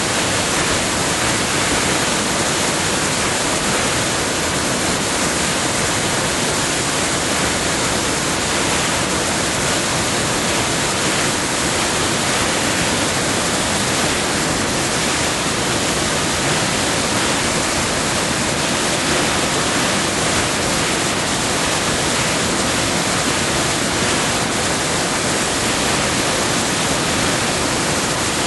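Creek water rushing over rocks in rapids, a steady, loud, even rush.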